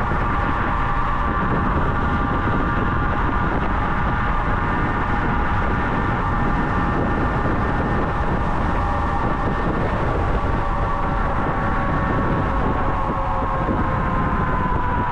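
Kaabo Wolf King GT electric scooter riding at speed: its hub motors give a steady high whine that falls in pitch near the end, over a heavy rush of wind and road noise on the chest-mounted microphone.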